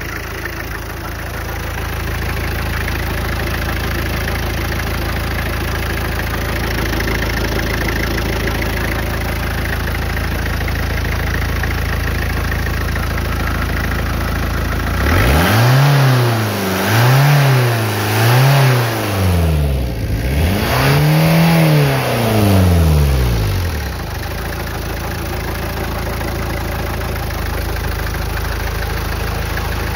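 1.9-litre turbodiesel engine idling, then revved three times in quick succession about halfway through and once more for longer, before settling back to idle. The engine is said to smoke and its turbo not to work.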